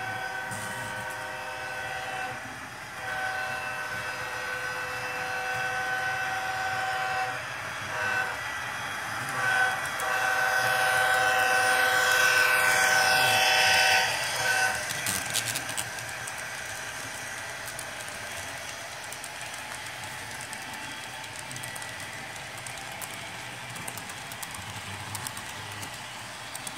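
HO scale Bachmann model of Norfolk Southern's EMD SD70ACe 8100, its DCC sound decoder playing a diesel air horn through the model's small speaker in a series of long and short blasts. The last and loudest is a long blast ending about fourteen seconds in. After that, the freight cars roll past with a light clatter of wheels on the model track.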